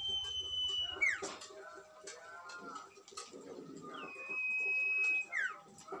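Sirtu birdsong: a long, high, steady whistle ending in a quick falling sweep, twice, with lower twittering in between.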